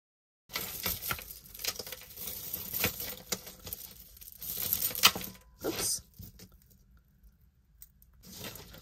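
Costume jewelry being handled and sorted: rustling with many small clicks and taps of beads and metal pieces, starting about half a second in, busiest for the next five seconds, then fainter and sparser.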